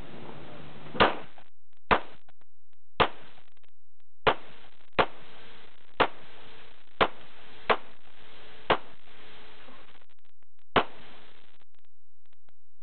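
Ten handgun shots fired one at a time, about a second apart, with a longer pause before the last shot.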